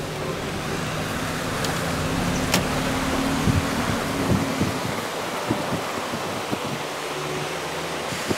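Car driving slowly, heard from inside the cabin: a steady noise of tyres and wind with a low engine hum under it and a few light clicks.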